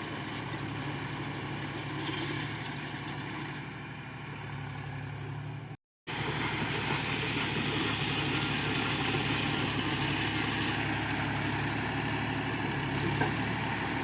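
Tractor engine running steadily as it drives a round baler rolling paddy straw into a bale. A brief break to silence comes about six seconds in, after which the running is a little louder.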